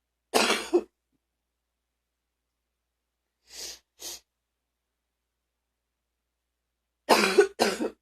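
A person coughing deeply: one hard cough about half a second in, two faint short breaths around the middle, then two coughs in quick succession near the end.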